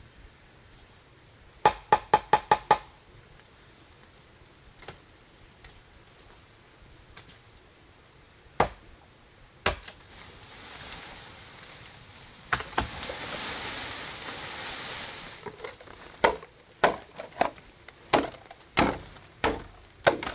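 Machete chopping bamboo: a quick run of about seven sharp chops, a couple of single strikes, then a steady run of chops about every half second near the end. In between there are a few seconds of rustling hiss.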